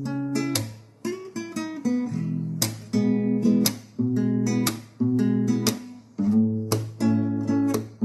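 Background music in an instrumental break: acoustic guitar chords strummed about once a second, each ringing out and fading before the next.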